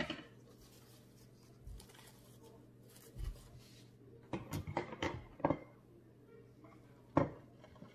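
Kitchen utensils and dishes clinking and knocking as food is handled at a griddle: a couple of dull thumps, then a quick run of light clicks and taps about halfway through and one sharper knock near the end.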